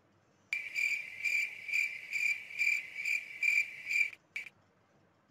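Cricket chirping sound effect: a steady high trill that swells a little over twice a second, starting half a second in and cutting off sharply about four seconds in, with one short chirp after it.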